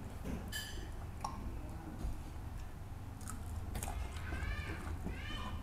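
Close-up mouth sounds of a person eating rice and fish by hand: wet chewing and lip-smacking clicks over a steady low hum. Near the end, two short high-pitched animal calls that rise and fall.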